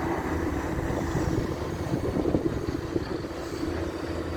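Heavy diesel construction machinery engine running steadily.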